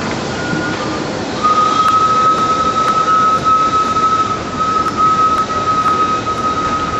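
Small resort passenger train running past, with a steady rolling noise and a single steady high-pitched squeal that sets in about a second and a half in and makes the sound louder.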